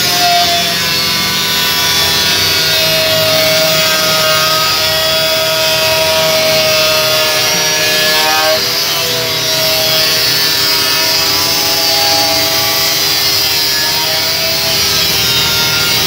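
Angle grinder cutting through a stainless steel sheet: a steady, loud whine with a hissing grind of metal, its pitch wavering a little as the disc is worked along the cut.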